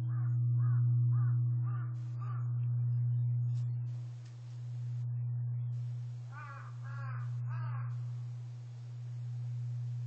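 Large bronze Japanese temple bell (bonshō) humming on after a strike: a low steady tone that swells and fades about every two seconds as it slowly dies away. Over it a bird calls, a run of about five short calls at the start and three more about six seconds in.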